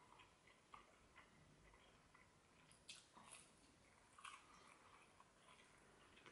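Faint mouth sounds of chicken nuggets being chewed, with soft irregular clicks and wet ticks. The loudest come about three seconds in and again a little past four seconds.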